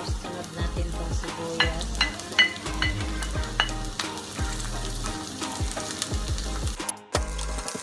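Garlic and ginger sizzling in hot oil in a frying pan as sliced red onions are tipped in and stirred with a wooden spatula. Several sharp taps of the spatula and plate against the pan come between about one and a half and four seconds in. The sound cuts out briefly near the end.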